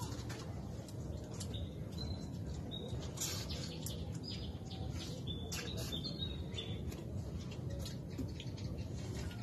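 Birds chirping, several short high chirps, over a steady low background rumble, with scattered light clicks.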